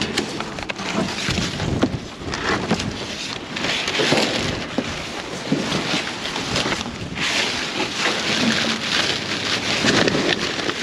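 Flattened cardboard boxes and plastic trash bags rustling, crinkling and scraping as they are shifted and dug through by hand inside a dumpster.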